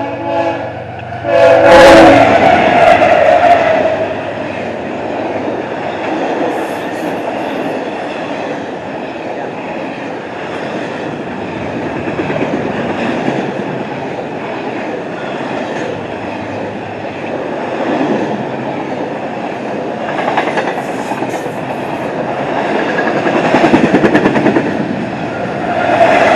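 Freight locomotive horn sounding for the first second or two, then GE ES44AH diesel locomotives passing loudly. After them comes the steady rumble and clickety-clack of a long intermodal train rolling by, which grows louder again near the end.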